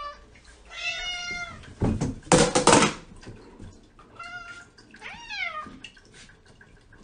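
Domestic cats meowing: one call about a second in, another about four seconds in, and a longer one just after that rises then falls. Between them, about two to three seconds in, comes a loud noisy burst.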